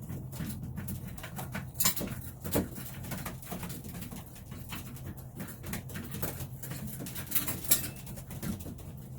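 Racing pigeons pecking at grain in a loft: a quick, irregular run of sharp clicks, with the low cooing of the flock underneath.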